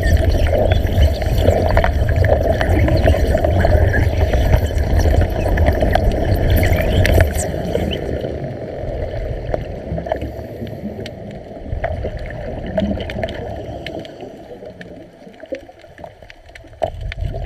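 Underwater electric arc at the electrode tip, crackling and bubbling loudly as it burns. It stops about seven and a half seconds in, leaving quieter water noise with scattered clicks.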